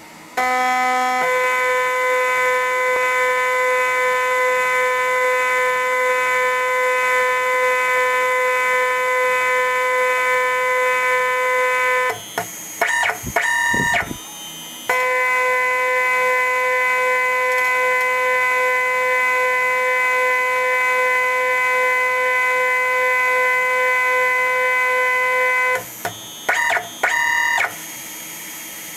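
CNC machine's stepper motors whining at a steady pitch as an axis feeds slowly during a touch-probe center-finding routine. The whine breaks up into a short jumble of shifting tones twice, about halfway through and near the end, then settles quieter.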